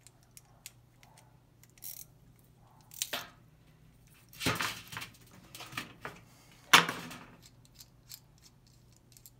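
Small metal clicks and clinks of a Honda lawnmower carburetor being taken apart by hand, its bottom float-bowl bolt being removed. Louder metal clatters come in the second half, the loudest about seven seconds in.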